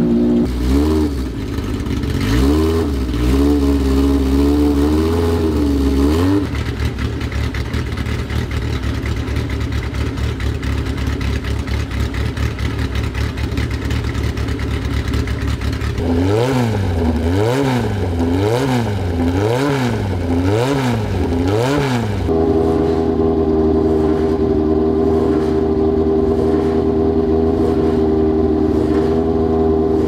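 Vintage race car engine idling and revved in quick throttle blips. A run of blips comes in the first few seconds, and about six evenly spaced blips, roughly one a second, come past the middle, with a steady idle between and after.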